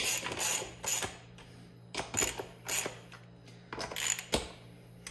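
Hand driver turning in the bolts of a beadlock ring on a UTV wheel: about five short bursts of metallic clicking and clinking as the tool and bolts work.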